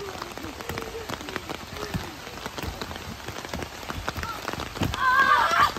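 Rain falling in a sunshower: a steady hiss scattered with many separate drop hits. Near the end a high voice calls out loudly.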